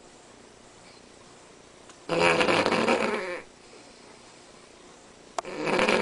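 Cavalier King Charles Spaniel snoring loudly while asleep: a long snore of over a second about two seconds in, and the next one starting near the end, with quiet breathing between. A faint click just before the second snore.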